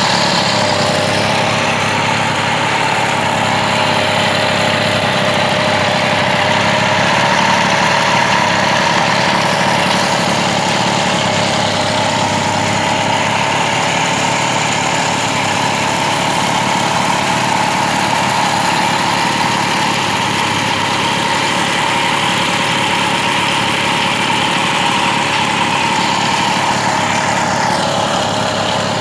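Hero Majestic moped's small two-stroke engine idling steadily, running after being repaired and started.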